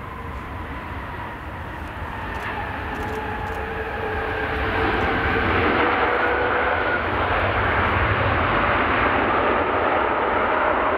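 Boeing 787 airliner's jet engines running as it rolls along the runway. Whining tones slowly fall in pitch over a deep rumble that grows louder around the middle and then holds steady.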